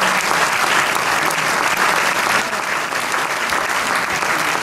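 Theatre audience applauding for the cast's curtain call: dense, steady clapping from many hands.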